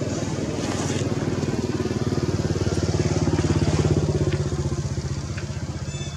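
A small engine running with a fast, even pulse. It grows louder to a peak a little past the middle, then fades off.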